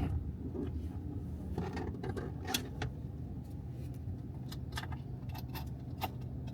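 Car cabin noise: a steady low engine and road rumble while driving, with scattered light clicks and rattles.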